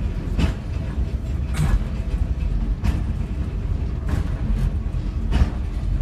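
Class 141 Pacer railbus running along the line, heard from inside the cab: a steady low rumble of its Cummins diesel engine and running gear. About six sharp knocks, roughly one a second, come from the wheels passing over rail joints.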